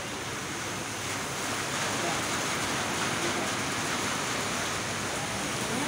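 Steady hiss of a rain and wind storm, growing a little louder about two seconds in, with a vehicle passing on the wet road.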